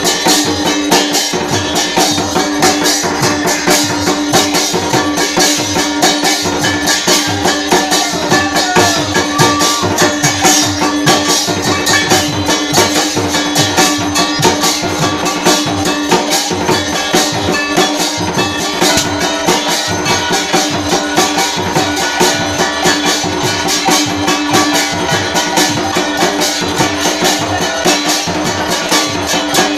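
Arati drumming: a large barrel drum and a smaller slung drum beaten in a fast, steady rhythm with jingling metal percussion over it, and a steady held tone underneath.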